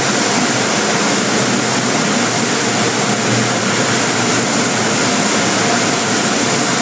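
Car wash air-dryer blowers running: a loud, steady rush of blown air.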